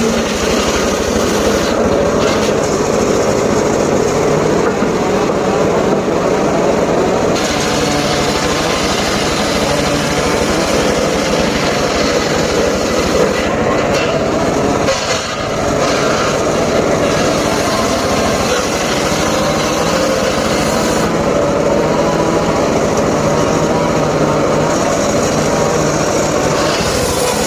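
Engine of a homemade circular saw rig running steadily, with a brief dip in level about halfway through.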